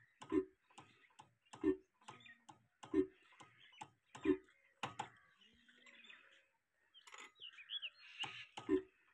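An old black stationary engine running with slow, heavy exhaust beats about once every second and a half. The beats stop for about three seconds past the middle, then pick up again slightly quicker near the end. Birds chirp briefly during the gap.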